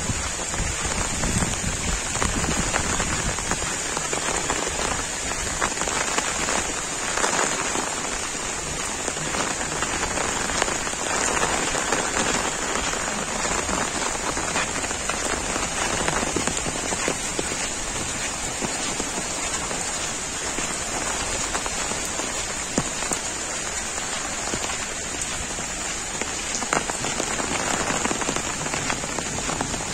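Heavy monsoon rain falling steadily: a dense, even hiss speckled with many individual drops striking close by.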